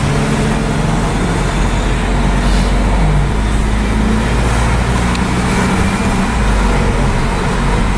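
Car engines running at low speed in street traffic: a steady low drone with no sharp revs.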